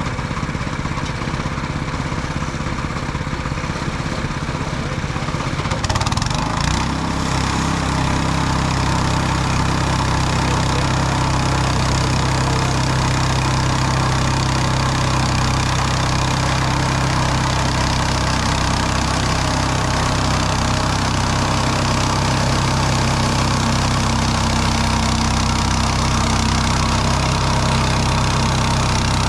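Petrol engine of a Mechmaxx SM-22 bandsaw mill running; about six seconds in it speeds up and then runs steadily at a higher pitch.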